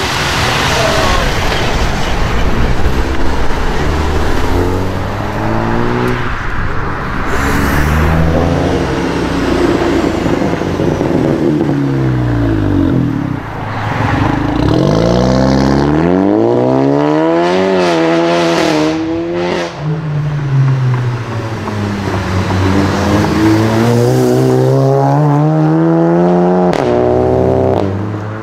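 Volkswagen Golf 7 GTI and Golf R turbocharged four-cylinder engines accelerating hard, one car after another. Each pull has revs climbing and dropping back at the gear changes, and there is one sharp crack near the end.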